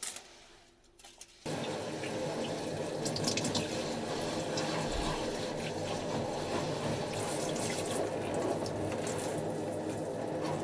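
A water tap is turned on about a second and a half in and runs steadily into a sink, with a few light clicks of handling on top.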